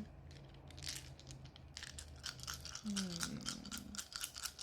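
Dice clicking and rattling against each other as they are handled and shaken, a dense run of small irregular clicks that grows busier partway through.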